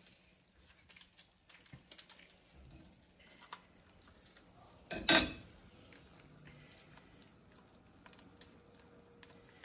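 Garlic, chicken stock and butter simmering quietly in a stainless frying pan, with scattered small ticks and clinks. One loud, short noise about five seconds in.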